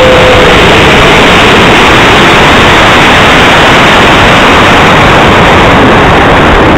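Loud, steady rush of air over the onboard camera of a high-power model rocket climbing after launch. The airflow overloads the microphone into an even roar.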